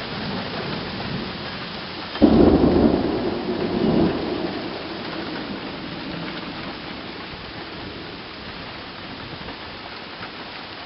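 Thunder in a summer storm: it starts suddenly about two seconds in and rumbles for about three seconds, swelling again briefly before it fades. Steady rain runs underneath throughout.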